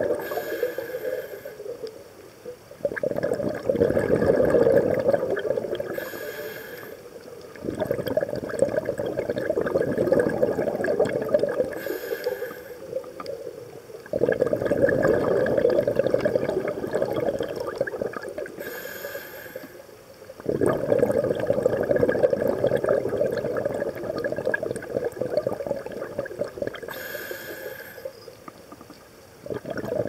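Scuba diver breathing through a regulator underwater: a short hiss on each inhale, then a rush of exhaled bubbles that starts suddenly and fades over several seconds, repeating about five times.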